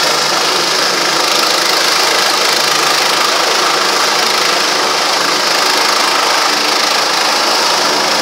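Helicopter hovering low overhead: a loud, steady drone of rotor and turbine engine with a few steady tones running through it.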